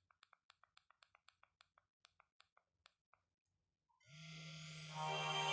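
Quick, faint clicks of a Nokia 1110i's keypad buttons being pressed, about five a second, stopping about three seconds in. About a second later the phone's ringtone starts playing and gets louder, with a low steady buzz under it.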